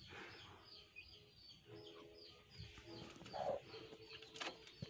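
Faint bird calls: a short high chirp repeated about three times a second, with low cooing now and then. A brief rustle of handling about three and a half seconds in.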